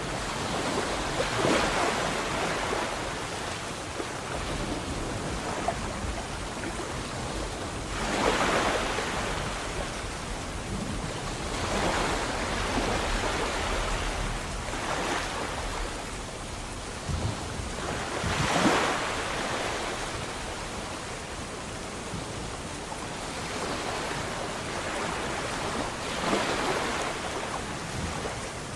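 Sea waves breaking and washing in. A steady surf hiss swells and fades, with about six louder surges a few seconds apart.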